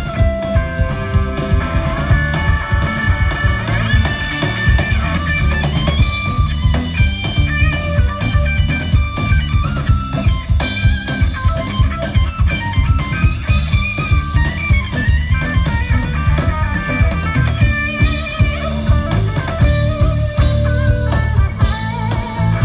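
Live rock band playing: electric guitar melody over bass guitar and a drum kit, with a steady beat.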